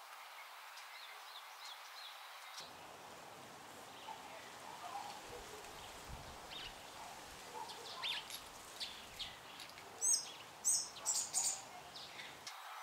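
Outdoor ambience with birds calling: faint small chirps at first, then scattered calls, and a few loud, very high chirps near the end.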